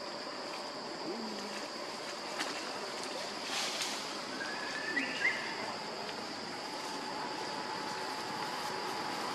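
Outdoor ambience with a steady high-pitched insect drone, and a few brief faint chirps about five seconds in.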